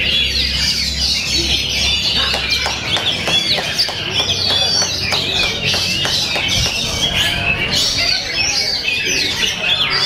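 Oriental magpie-robin (kacer) singing a loud, continuous stream of quick, varied chirps and whistles.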